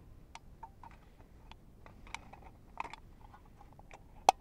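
Thin aluminium soda can being cut around with a small knife: scattered small clicks and crinkles from the can wall, then one sharp, loud click near the end.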